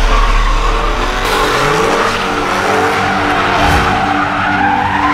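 Dodge Challenger SRT Hellcat's supercharged 6.2-litre V8 held at high revs through a donut, its rear tires squealing continuously as they spin on the asphalt.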